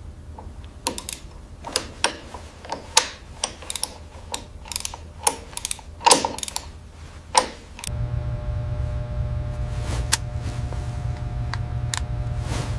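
Irregular mechanical clicks and clacks over a low hum. About eight seconds in, the clicks stop and a steady low droning music bed with held tones takes over.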